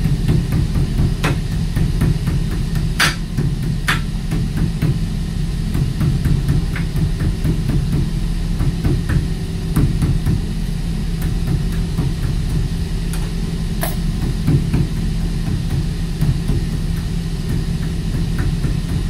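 A hammer repeatedly striking a steel wire rope eye splice held in a bench vise, pounding the tucked strands down to tighten and finish the splice. The blows come as many short, irregular taps, with a few harder knocks about a second in, around three and four seconds in, and near fourteen seconds, over a steady low machinery hum.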